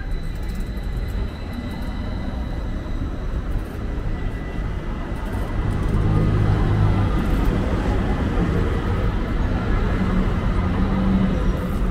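Busy city street noise, with a vehicle's low rumble building from about halfway through and holding to the end.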